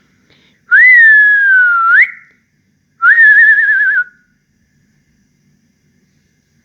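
A person whistling two notes by mouth: a long swooping note that sinks slowly and flips up at the end, then after about a second a shorter warbling, trilled note.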